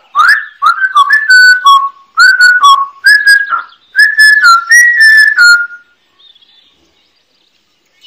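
African grey parrot whistling a tune: a run of clear whistled notes, several sliding upward, in four short phrases that stop about six seconds in.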